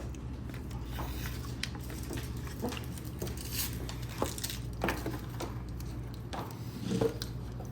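Scattered small clicks, taps and rustles of food containers and utensils being handled during a meal, over a steady low hum.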